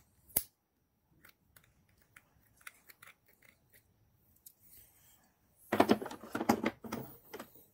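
A sharp metal click from hand-held hose clamp pliers, then a few faint ticks. About six seconds in comes a run of loud clattering and knocking: steel pliers being set into and lifted out of a hard plastic tool case.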